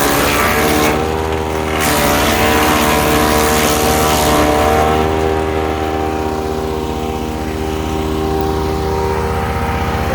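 Ducar wood chipper's small gasoline engine running steadily at speed. For about the first half a loud rushing noise rides over it and the engine pitch dips slightly under load, typical of branches being fed through and chipped. The rushing then fades, leaving the engine running on alone.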